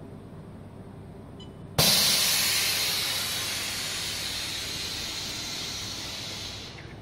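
Loud hiss of compressed air from an automatic plastic sheet bending machine. It starts suddenly about two seconds in, slowly fades, and drops away near the end.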